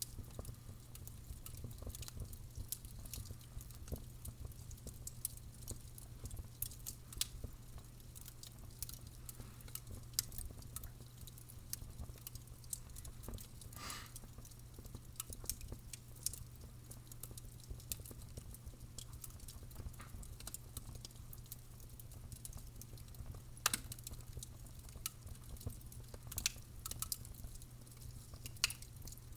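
Wood fire crackling, with frequent small snaps and a few louder pops. A short faint whistle comes about halfway through, over a steady low hum.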